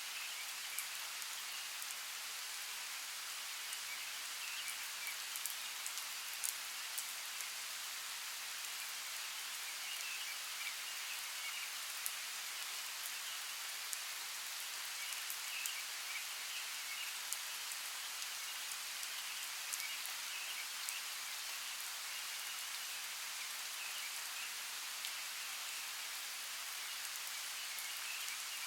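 Steady rainforest rain falling on foliage, a constant hiss with scattered individual drops ticking sharply. Faint chirps come and go in the background.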